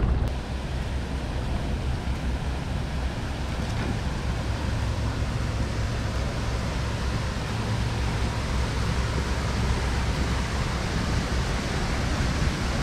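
Steady rushing noise of wind on the microphone mixed with river water, with a constant low rumble.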